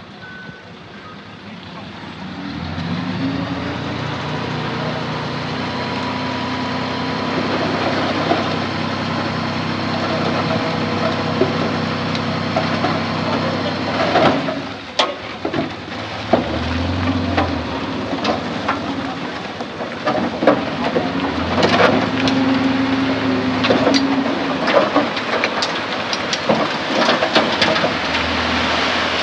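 A heavy diesel engine revs up about two seconds in and runs hard under load, easing off briefly near the middle and again near the end. Metal clanks and knocks come over it through the second half.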